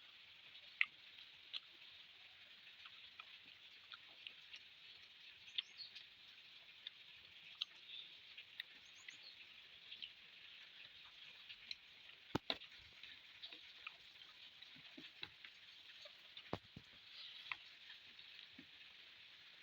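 Close-miked eating sounds of a person chewing rice and fish curry: soft, scattered wet clicks and mouth smacks, with a few sharper clicks in the second half, over a steady faint hiss.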